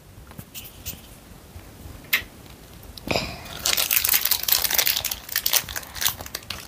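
Plastic wrapper of an air-dry clay packet crinkling as it is handled, a dense run of crackles starting about three seconds in after a few faint clicks.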